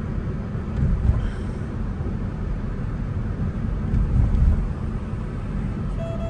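Steady low road and tyre rumble inside the cabin of a moving Kia Stinger, swelling a little twice. A brief beep near the end.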